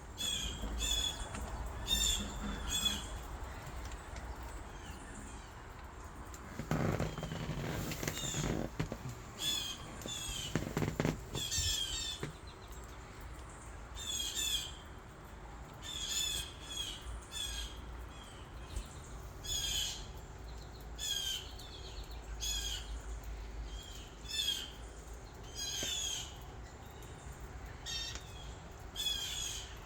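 Birds calling outdoors: short, high chirping calls repeated every second or two. A lower noise swells and fades between about seven and eleven seconds in.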